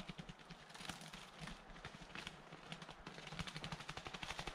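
Footsteps crunching and crackling through dry leaves, twigs and brush on a forest floor, a quick irregular run of small crisp clicks and soft thuds.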